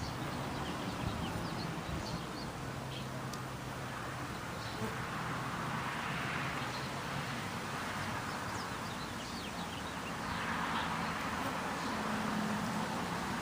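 Honeybees humming around an opened hive, against wind and street traffic noise that swells twice, with short bird chirps scattered throughout.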